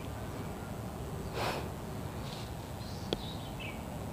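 Steady background hiss, with a short breathy noise from a person close to the microphone about a second and a half in and a single sharp click about three seconds in.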